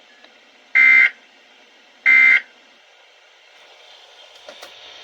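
Two short bursts of SAME digital data tones from a Weatheradio Canada broadcast, about 1.3 seconds apart: the end-of-message code that closes an alert bulletin. Faint radio hiss follows.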